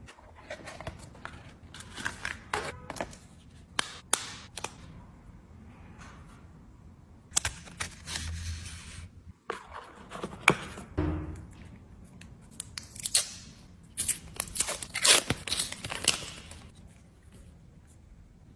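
Smartphone packaging being opened and handled by hand: plastic wrap tearing and crinkling, cardboard box parts sliding and rustling, with scattered sharp clicks and taps.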